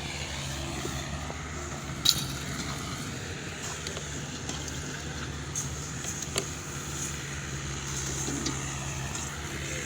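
An engine running steadily with a low, even hum, with a sharp click about two seconds in and another about six seconds in.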